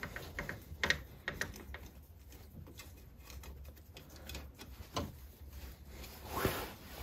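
Irregular light clicks of a hand tool tightening the mounting screws of a manual 4WD actuator on an ATV's front differential, several in quick succession at first, then only now and then.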